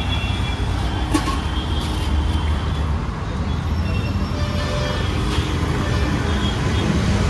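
Steady rumble of road traffic passing close by, with a couple of short sharp clinks.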